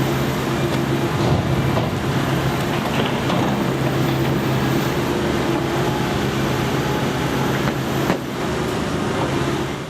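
An engine running steadily, a constant low hum over general street noise.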